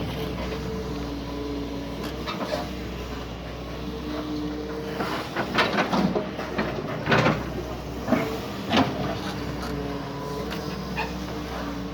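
Doosan DX140 excavator running under work, its engine humming low with a pitched hydraulic whine that shifts now and then. A run of loud knocks and clatters about halfway through, the loudest around seven and nine seconds in.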